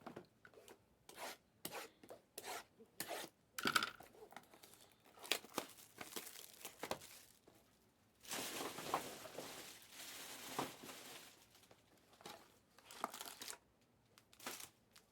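Plastic wrapping being torn and crinkled off sealed trading card boxes: a run of short sharp crackles, then a few seconds of continuous rustling about eight seconds in, then more crackles.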